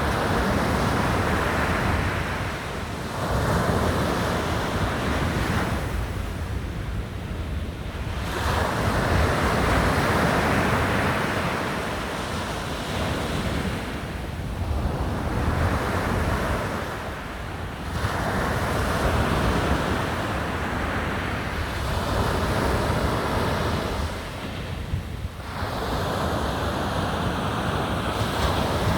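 Sea waves breaking and washing onto the shore, the roar swelling and falling back every few seconds, with wind rumbling on the microphone.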